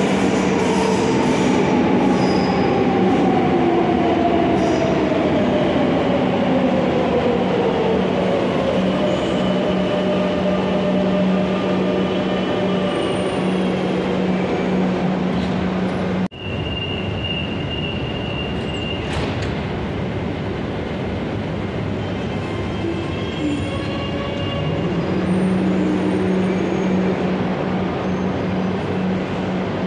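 Madrid Metro train pulling into an underground station. Its motors whine in a falling tone as it slows to a stop over the first several seconds, then it stands at the platform with a steady electrical hum.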